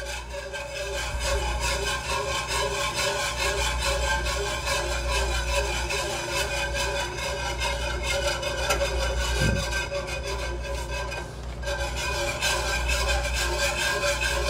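Stainless steel wire whisk beating milk into a butter-and-flour roux in a skillet, a quick, steady scraping and swishing of the wires against the pan, easing briefly about eleven seconds in.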